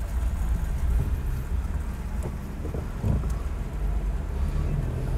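Steady low rumble of outdoor background noise, with faint scattered small sounds above it.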